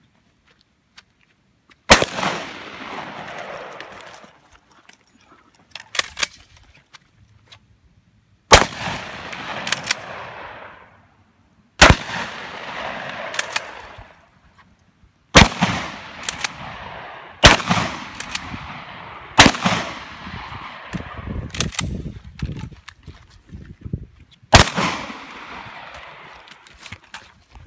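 Magazine-fed shotgun firing about eight single shots, spaced two to six seconds apart, each followed by a long echo that dies away. Fainter clicks and knocks come between some of the shots.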